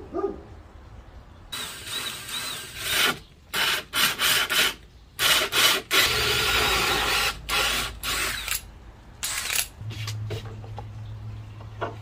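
Power drill cutting a hole through a metal plate in a series of stop-start bursts, each from a fraction of a second to about a second and a half long.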